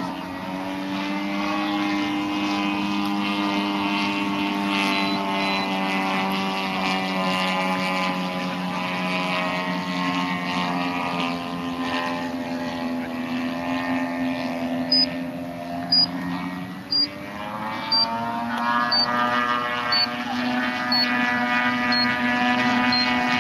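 Remote-control model airplane engine running in flight with a steady buzzing note. Its pitch sags slowly through the middle, then climbs again about two thirds of the way in as the plane passes or the throttle changes. In the last third there are short high peeps about once a second.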